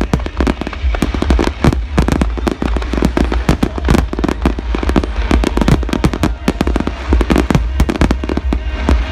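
Fireworks display in full volley: many aerial shells and crackling effects bursting in quick succession, several sharp bangs a second.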